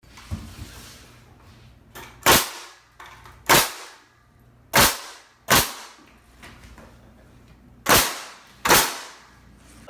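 Pneumatic framing nail gun firing six sharp shots, roughly in pairs, each with a short hiss-like tail.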